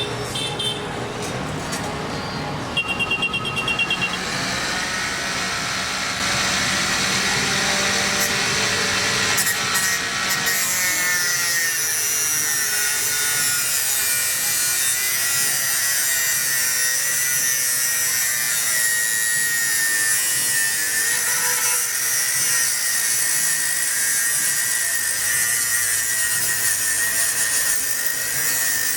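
Homemade cutter driven by a 775 DC motor, its spinning blade cutting through a sheet of material with a steady whine and a rasping cut, louder and harsher partway through.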